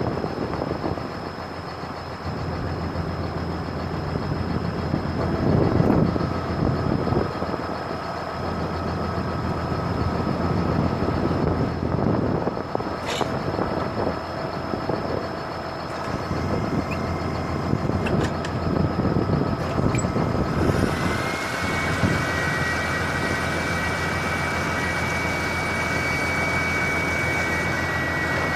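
Heavy truck engine running steadily on a grain haul. About two-thirds of the way through, a steady higher whine and hiss come in and stay.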